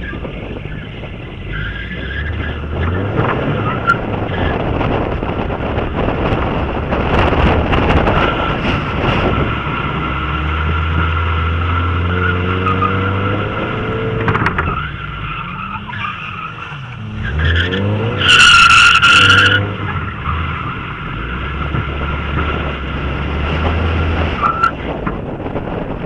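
Mazda MX-5 Miata's four-cylinder engine revving up and down through drifts while the tyres squeal steadily under sideways slip. About two-thirds of the way in comes the loudest, sharpest squeal, lasting about a second.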